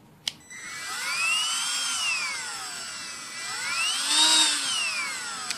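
Milwaukee rotary tool switched on with a click. Its motor whine rises and falls in pitch twice as the variable speed is turned up and down, and it clicks off near the end.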